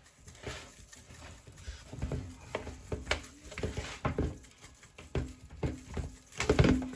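Irregular kitchen clatter: a string of short knocks and taps as chicken pieces and utensils are handled while cooking, with the loudest knock about six and a half seconds in.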